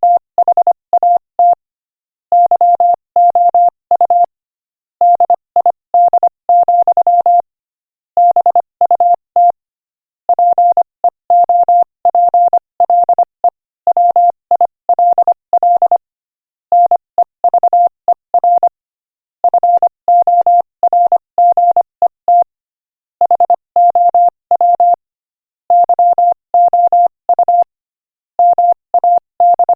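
Morse code sent at 25 words per minute: one steady, mid-pitched beep keyed on and off in short dots and longer dashes, with brief pauses between words.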